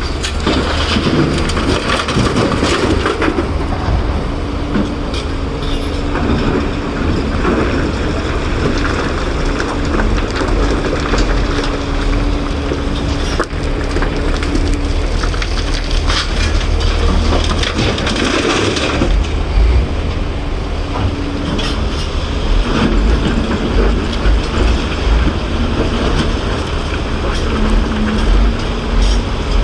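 Caterpillar 336 excavator's diesel engine running steadily under load, while rock and dirt grind and crunch in the bucket in loud surges twice. The surges come about a second in and again at about 16 seconds in.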